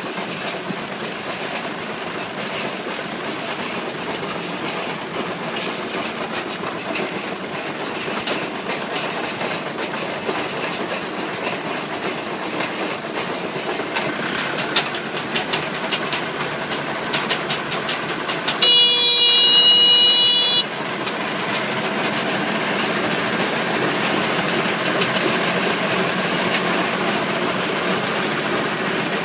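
Small PTO-driven round hay baler (RHB0870) running off a tractor as straw feeds in: a steady mechanical noise with sharp clicks now and then. About two-thirds of the way through, a loud electronic buzzer tone sounds for about two seconds, then cuts off.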